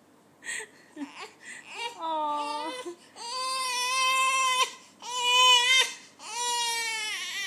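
Young infant crying: a few short breaths, then about four wails of a second or so each, as her hand is held open and painted.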